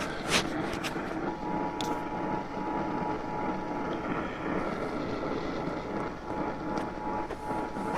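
Radio static: a steady hiss on the received broadcast between alert messages, with a few sharp crackles in the first two seconds. A faint steady whistle comes in at about a second.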